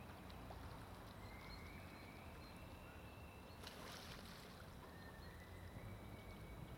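Near silence: faint outdoor background rumble, with a faint thin high whine and a brief soft rustle about four seconds in.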